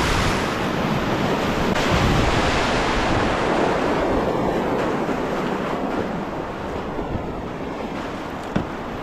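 River rapids rushing in a steady wash of water noise, with wind buffeting the microphone. A single short knock comes shortly before the end.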